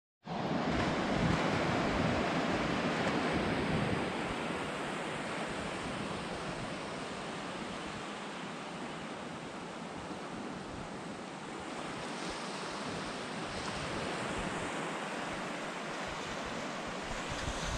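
Sea surf washing on a flat sandy beach, mixed with wind buffeting the microphone: a steady rushing noise with irregular low rumbles, a little louder in the first four seconds.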